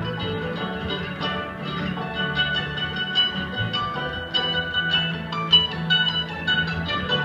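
Live acoustic bluegrass band playing: fiddle, mandolin and acoustic guitar over an upright bass, with quick plucked notes running throughout.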